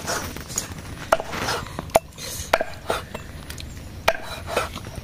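Steel meat cleaver chopping grilled pork intestine on a round wooden chopping board: several sharp, irregularly spaced chops.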